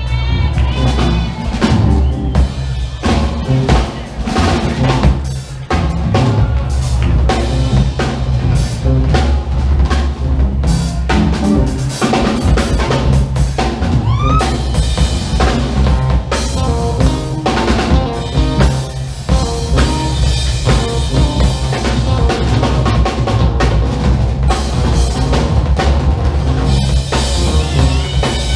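Funk band playing live, with the drum kit to the fore: busy kick and snare drumming over bass guitar and keyboard.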